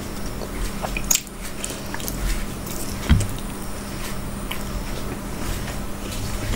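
Close-up eating sounds: wet chewing and small mouth clicks, with fingers mixing rice and curry on a steel plate and one dull thump about three seconds in.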